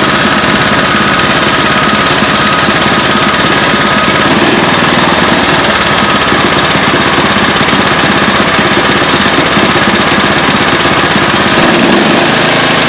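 Murray mower's small engine running steadily with a rapid, hammering knock, loud throughout. The knock is the sign of an internal engine fault.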